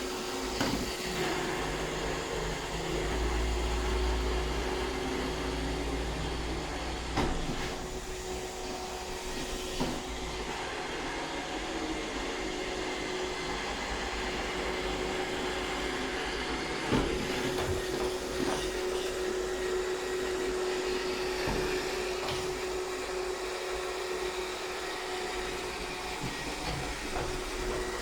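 iRobot Roomba 630 robot vacuum running steadily, a constant hum over a whirring noise, with a few sharp knocks along the way.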